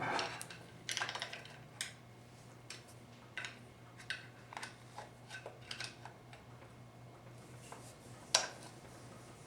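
Scattered light metallic clicks and taps of hand tools working at a 4L60E transmission input drum, trying to free a part that is stuck. A faint steady low hum runs underneath, and the sharpest click comes near the end.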